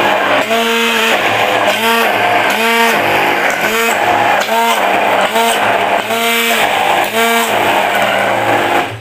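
Electric immersion hand blender running in a tall plastic beaker of thick egg-and-oil sauce, its motor pitch rising and falling about twice a second as it is worked through the mixture. It cuts off near the end.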